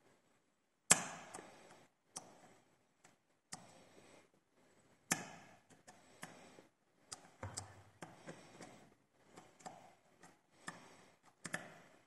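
Lock picking in a Zeiss IKON SK6 cylinder: metal pick and tension tool working in the keyway, with irregular light clicks and scraping. Sharp louder clicks come about a second in and again around five seconds in.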